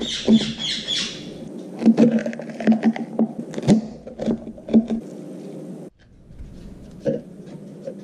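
Kitchen knife cutting through an apple and a bell pepper on a tiled counter, the blade knocking sharply on the tile about nine times in the first five seconds, after a short hiss at the very start. Near the end only softer, scattered clicks remain.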